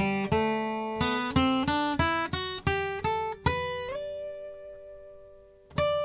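Kevin Kopp K-35 slope-shoulder dreadnought acoustic guitar, with mahogany back and sides and a torrefied Adirondack spruce top, played fingerstyle. It starts with a run of picked notes. A little past halfway, a chord is left ringing and fading for about two seconds, then the picking starts again near the end.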